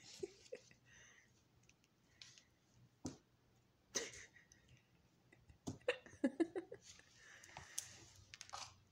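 Scattered soft taps, knocks and rustling from a cat toy being swept and batted about a cat tree and floor, with a brief wavering voice-like sound in the middle.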